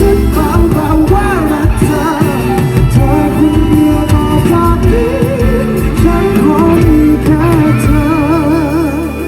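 Thai pop band playing live, with a singing voice holding long wavering notes over sustained band chords.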